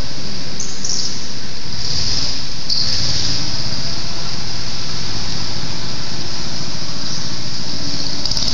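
Go-karts running steadily past on a concrete track, with tyres squealing on the smooth floor in several spells of a second or so.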